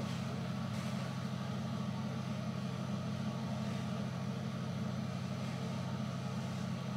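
Steady low hum with a faint even hiss over it, unchanging throughout.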